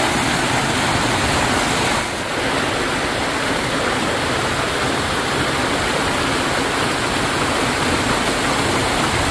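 Steady, loud rush of a river in flood, its water running fast and muddy.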